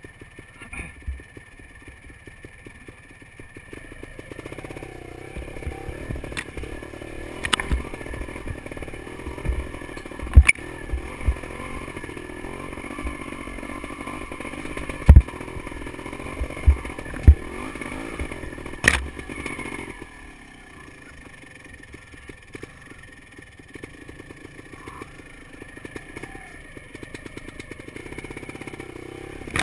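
Beta Alp 250 trail motorcycle's engine running at low revs on a stony trail; it picks up about four seconds in and eases off again around twenty seconds. Several sharp knocks and clatter come through in the middle stretch as the bike goes over the rough ground.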